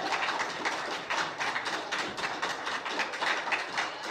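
Audience applauding: a dense run of handclaps that begins to thin near the end.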